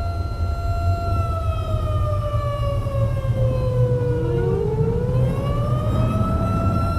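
Outdoor tornado warning siren wailing: a steady tone that falls slowly in pitch from about a second in, then climbs back up to the same note near the end, over a steady low rumble.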